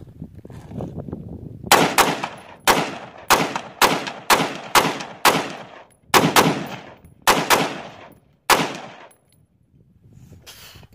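Rapid semi-automatic gunfire: about a dozen shots fired in quick succession, roughly two a second, each with a short echoing tail, stopping about two-thirds of the way in.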